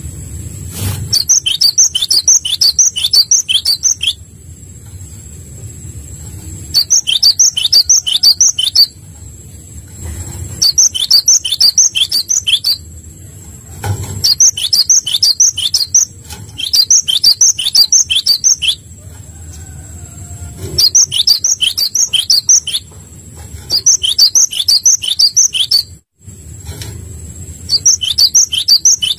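A small songbird singing in repeated bouts of rapid high chirps, each bout about two seconds long and coming about every four seconds.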